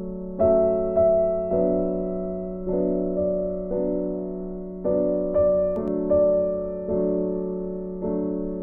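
Slow background piano music: chords struck about once a second and left to ring and fade, over a held low note.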